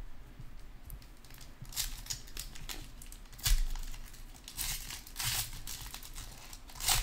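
Shiny foil wrapper of a Chronicles basketball card pack crinkling in the hands in a run of short rustles as it is handled and torn open.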